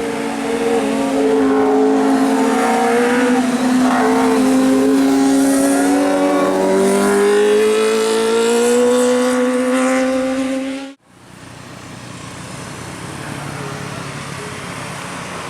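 Bus 'telolet' horn sounding a long, slowly wavering tone, with other higher tones weaving over it. It cuts off abruptly about eleven seconds in, leaving a quieter steady vehicle noise.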